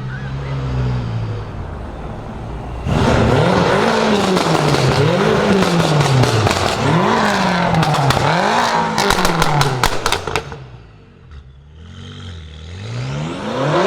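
BMW M5 F10's twin-turbo V8, breathing through catless downpipes and an M Performance exhaust, revved in a series of quick blips, about five rises and falls. A rapid string of exhaust crackles comes at the end of the revving. It then settles back briefly before picking up again near the end.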